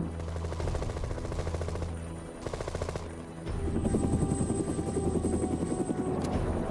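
UH-1 Huey helicopter rotor beating in flight over its turbine engine, with bursts of machine-gun fire. The sound dips briefly in the middle, then picks up again.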